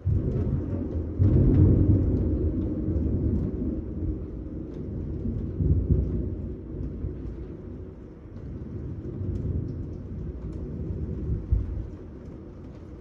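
Thunder: a clap that starts suddenly and is loudest in the first two seconds, then rumbles on in waves for about ten seconds before dying down near the end.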